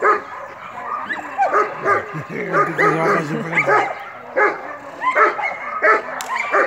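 Belgian Malinois barking repeatedly in protection (defence) work, short sharp barks about one to two a second.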